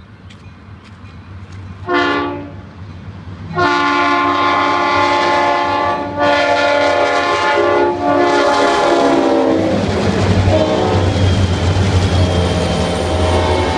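Union Pacific excursion train's diesel locomotive horn sounding a short blast, then a long loud blast broken by two brief dips, as the train approaches. The horn fades near the end while the passing diesel locomotives rumble by.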